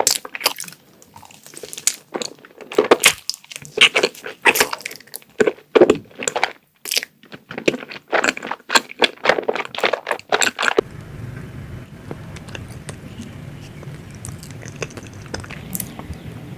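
Close-up crinkling and crunching, a dense run of sharp crackles. About eleven seconds in it stops abruptly and a steady low hum with a few faint clicks takes over.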